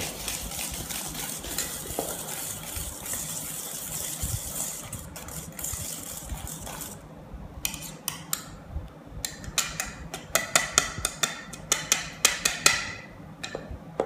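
Wire balloon whisk stirring melted dark chocolate into a creamed butter, sugar and egg batter in a stainless steel bowl. A continuous swishing scrape for the first half, then a quick run of clinks as the wires strike the bowl's side over the last several seconds.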